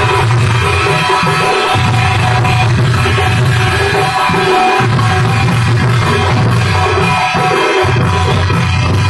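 Loud dance music with dense drumbeats and a deep bass line that drops out for a moment every few seconds.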